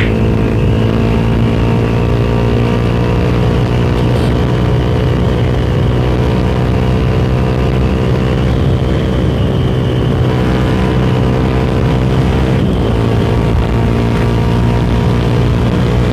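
Suzuki Satria FU Fi's 150cc single-cylinder four-stroke engine running hard through a Tritech Ronin Katana SE aftermarket exhaust at speed, holding steady high revs, with a brief dip in revs about twelve and a half seconds in.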